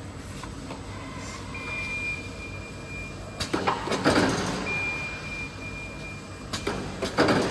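Combined metal detector and checkweigher conveyor line running. A steady high alarm tone sounds twice for about two seconds each, and each is followed by a short burst of clatter and hiss as the reject mechanism kicks a package off the belt.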